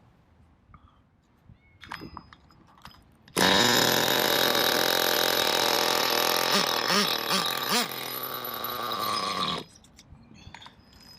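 Nitro RC buggy's small glow engine catching and running for about six seconds, with a few quick rises and falls in pitch from throttle blips, then cutting out suddenly; it wants to bog down, as the owner says just after, which a needle adjustment is meant to cure.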